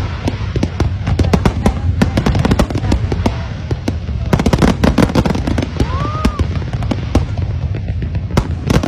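Fireworks display going off: a dense, rapid string of sharp bangs and crackles over a continuous low rumble, loud throughout.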